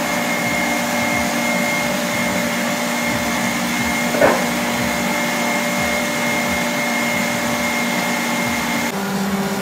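Electric stand mixer running with its balloon whisk, beating egg yolks and hot sugar syrup while the mixture cools to room temperature. It is a steady motor hum, with one brief louder sound about four seconds in, and the hum drops lower near the end.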